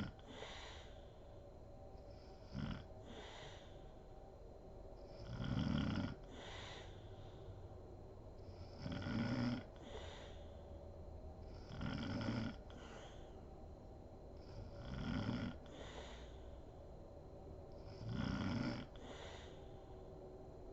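A sleeping woman snoring in a steady rhythm: one low snore about every three seconds, each followed by a softer, breathy out-breath.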